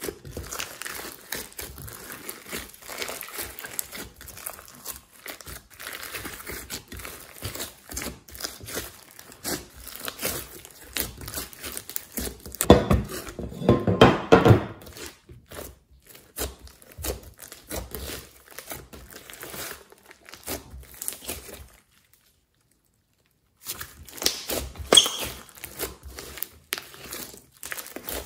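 A large glitter slime squished and kneaded by hand, giving a dense run of small sticky pops and clicks as air pockets burst. It is loudest about halfway through, with a brief stretch of complete silence about three quarters of the way in.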